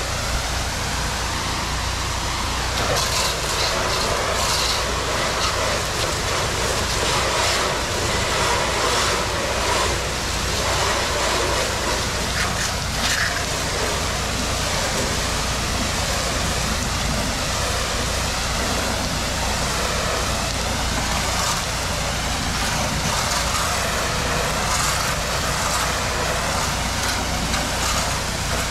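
Pressure-washer spray hitting the screens of a pool screen enclosure: a steady hiss of water with a low hum underneath.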